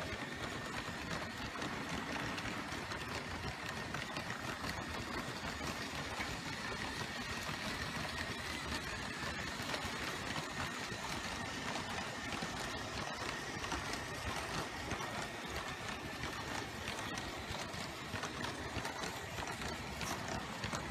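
LEGO train rolling on plastic LEGO track, its wheels clicking rapidly over the rail joints, with a steady high whine from its electric train motor.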